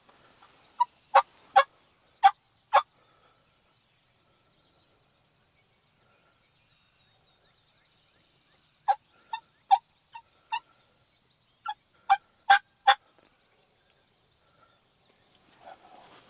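Wild turkey yelps: three runs of short, sharp notes, about two or three a second, with quiet gaps between the runs.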